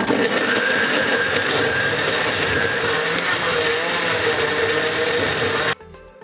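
Taurus Supreme Mix countertop blender running steadily at speed, puréeing chopped tomatoes, cucumber and peppers into gazpacho. The motor stops abruptly near the end.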